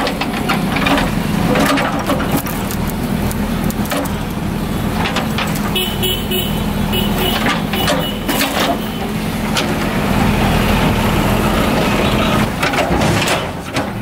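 JCB 3DX Eco backhoe loader's diesel engine running steadily under load as its backhoe arm and bucket push against a big tree stump, with scattered sharp knocks throughout.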